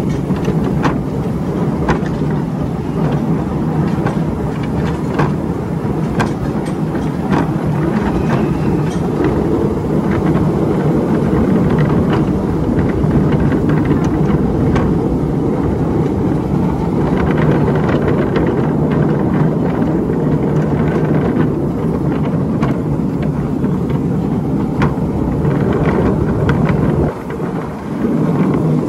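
Ride-on miniature railway train running along its track, heard from an open carriage: a steady low rumble with frequent short clicks from the wheels on the rails, easing briefly near the end.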